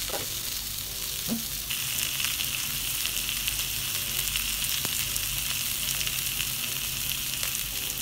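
Salmon steak frying in hot oil on a flat iron pan: a steady sizzling hiss with a few scattered pops, growing louder about two seconds in.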